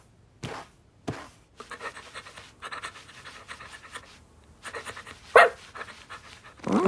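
A cartoon kitten's voiced sound effects: runs of quick, short, breathy sounds, with one louder sharp burst about five seconds in.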